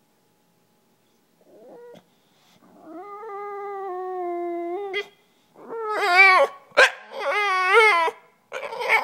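English bulldog whining to be played with. A short faint whine comes first, then one long steady whine, then two louder whines that waver up and down, with a sharp click between them.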